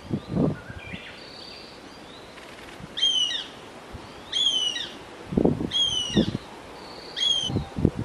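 Fledgling goshawk calling: four short, down-slurred whining calls about a second and a half apart, typical of a young goshawk's begging call. A few low muffled thuds come in among them.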